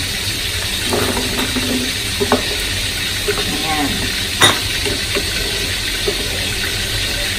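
Rice cakes tipped into a pan of boiling water and stirred with a wooden spatula, giving a few knocks against the pan, the sharpest a little past halfway. Under it runs a steady sizzle of a whole chicken frying in oil in a wok.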